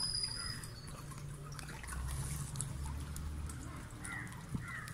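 Caged birds giving short chirps, with a brief high whistle at the start, over water trickling and dripping.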